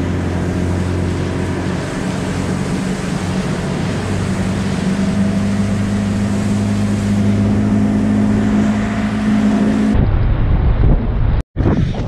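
1978 Evinrude 85 HP two-stroke V4 outboard running steadily as it moves the boat, its pitch rising slightly about four seconds in. About ten seconds in the engine sound gives way to wind noise on the microphone.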